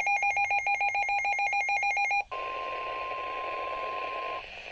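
Midland WR300 weather radio's built-in alert alarm beeping rapidly, about eight pulses a second, then giving way about two seconds in to the received NOAA Weather Radio broadcast: the end of the 1050 Hz warning alarm tone, one steady tone over radio hiss, which stops shortly before the end.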